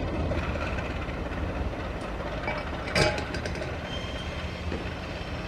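Indonesian CC 201 diesel-electric locomotive running with a steady low rumble, with one sharp knock about three seconds in.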